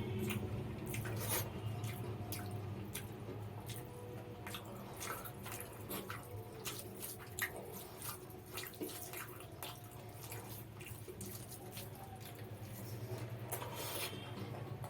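Close-up wet eating sounds of mutton biryani with raita: many quick, irregular mouth clicks and smacks of chewing, over a steady low hum.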